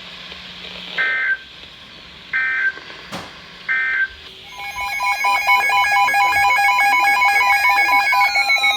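Emergency Alert System broadcast on weather radio: three short bursts of SAME digital header tones, about a second and a half apart, then a loud pulsing, warbling alert tone that announces the next warning. A tone slides downward near the end.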